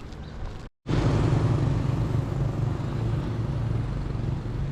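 A motor vehicle engine running close by, with a steady low hum. It comes in loud right after a brief dropout about a second in, then slowly eases off.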